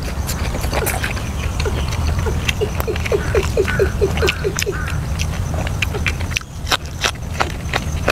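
Close-up chewing and crunching of grilled food, with many sharp clicks throughout. A few seconds in, a quick run of about a dozen short, falling animal calls sounds in the background.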